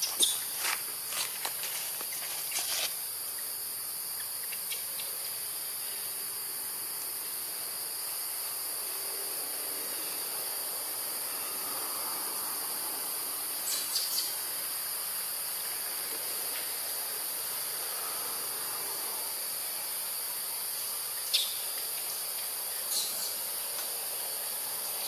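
A steady, high-pitched chorus of insects buzzing without a break, with a few short sharp clicks or snaps near the start, around the middle and late on.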